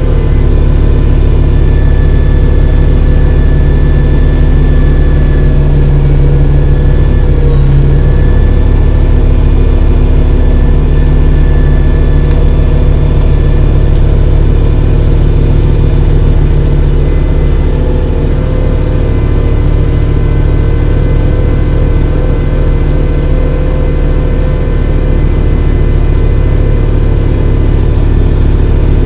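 Kubota tractor's diesel engine running steadily while it clears snow with its snowblower, with a steady whine on top; the sound eases off slightly for several seconds in the second half.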